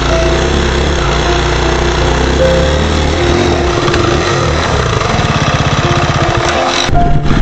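Husqvarna FE 350 dual-sport motorcycle's single-cylinder four-stroke engine running on the trail, with the engine speed shifting up and down. The sound changes abruptly near the end.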